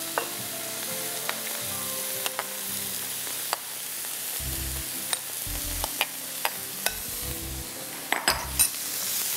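Beef steak sizzling steadily in a hot pan, with scattered sharp clicks.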